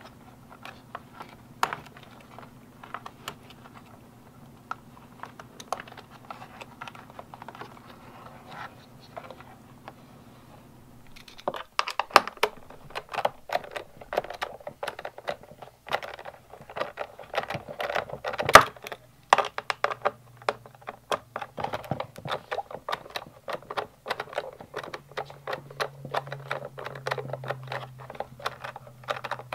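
Light clicks and taps of hands pulling apart bullet connectors on a Honda Grom's plastic rear fender and turn-signal wiring. About eleven seconds in, denser, louder rapid clicking of a hand driver working the fender's bolts takes over, with one sharp knock about halfway through.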